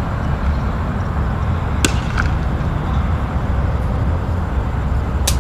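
Two sharp cracks, one about two seconds in and one near the end, like a cricket bat striking a ball at the practice nets, over a steady low background rumble.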